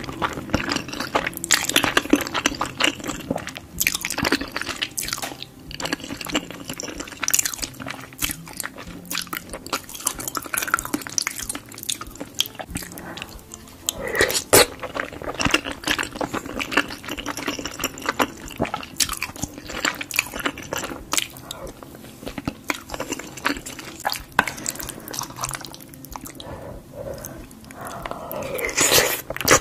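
Close-miked ASMR eating of cheesy lasagna: continuous chewing and mouth sounds, broken by many short, sharp clicks.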